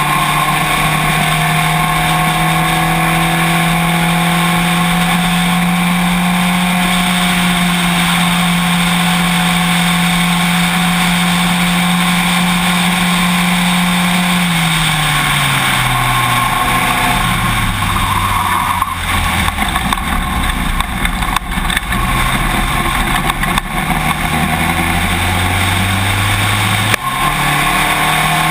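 Spec Racer Ford engine heard onboard, running flat out at a steady pitch with wind rush, then falling in pitch over a few seconds as the car slows, staying low briefly, and climbing again with an upshift near the end. Short taps come in during the second half as rain starts hitting the camera.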